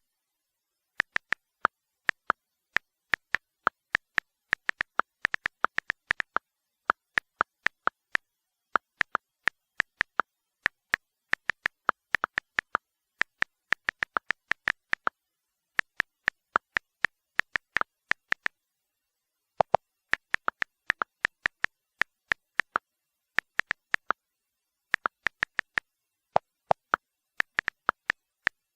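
Typing sound effect for a message: short, sharp keyboard key clicks at an uneven typing pace, a few per second, in runs broken by pauses of up to about a second.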